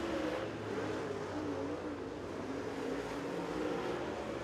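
Super late model dirt track race car V8 running at speed on a qualifying lap. Its pitch rises and falls in waves as the throttle comes on and off through the turns.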